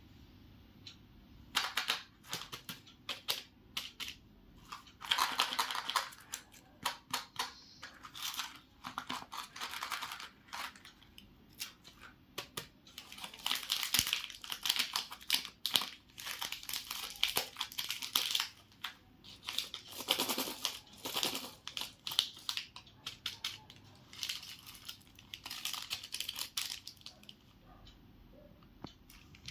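Chocolate and candy wrappers crinkling and tearing as they are opened by hand, in irregular crackly bursts that begin about a second and a half in.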